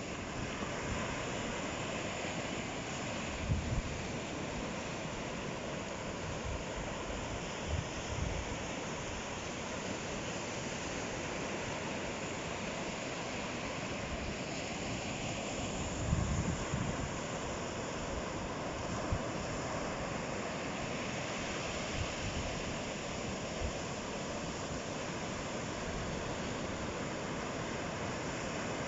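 Ocean surf washing onto the shore in a steady, unbroken rush. A few short low thumps of wind buffet the microphone, the strongest about three and a half seconds in and again around sixteen seconds.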